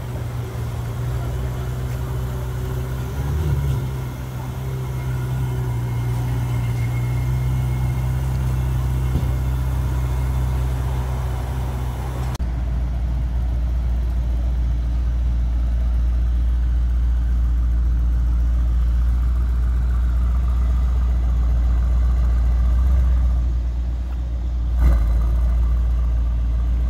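A Ferrari 488's twin-turbo V8 running at low revs as the car pulls slowly away, with a steady hum. About halfway through it gives way to a Mercedes-AMG E63's twin-turbo V8 idling with a deeper, steady rumble, with a single short knock near the end.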